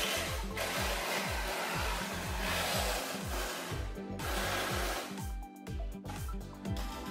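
Music with a heavy, repeating deep bass beat, over the steady hiss of a handheld cordless power tool working on rusted sheet metal; the tool stops about five seconds in.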